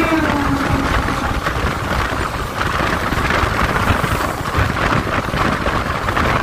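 Running noise of a moving passenger train heard from an open coach doorway: a steady rush and rumble of wheels on track, with an electric local train passing on the next line. In the first second a held tone dips slightly in pitch and dies away.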